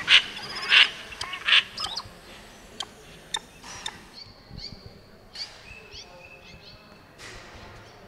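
Birds calling: several loud, harsh, pulsed calls in the first two seconds, then scattered short chirps, held whistles and falling notes, played as the installation's soundtrack through loudspeakers.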